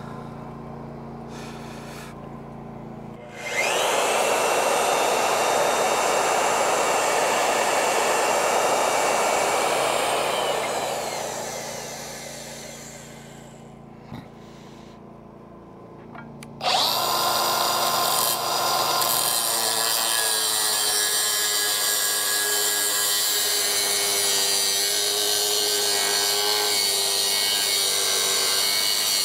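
A magnetic drill press runs a 3/4-inch hole saw through steel plate. The loud cutting starts about three seconds in and winds down between about ten and thirteen seconds. From about seventeen seconds, a cordless angle grinder with a cut-off wheel cuts the steel plate with a steady high whine.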